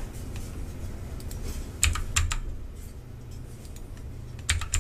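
Clicks from a computer keyboard and mouse: a quick cluster of about four near two seconds in and two more near the end, over a low steady hum.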